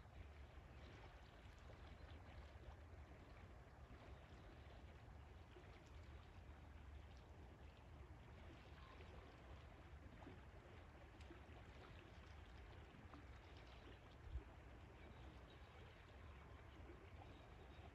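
Faint, steady rush of flowing river water, with a low rumble underneath and one brief low thump late on.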